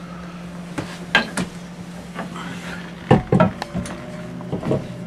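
Scattered metal knocks and clinks as an electric drive motor is handled and offered up to its gearbox, over a steady low hum.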